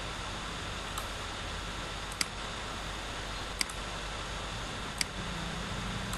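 Computer mouse clicking four times, two of them quick double clicks, about a second and a half apart, over a steady hiss. A low hum comes in near the end.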